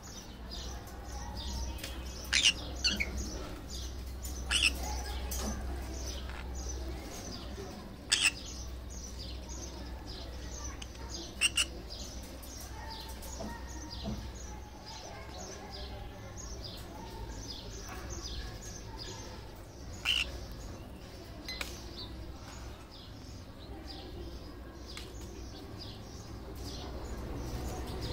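Conures chirping: many quick high chirps, with a few louder, sharp calls scattered through. A low hum runs underneath.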